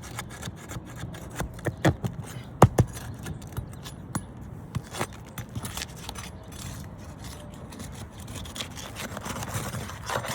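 Scraping, rubbing and sharp cracks of asphalt roof shingles being worked loose, the loudest cracks about two to three seconds in; the brittle shingles are splitting as they are lifted.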